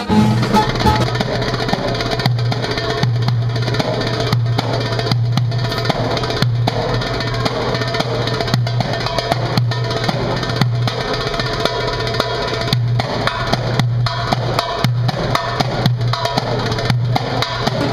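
Goblet-shaped hand drum played with bare hands in a fast, dense run of slaps and tones.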